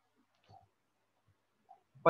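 Near silence on an online call, with two faint, brief sounds: one about half a second in and one near the end.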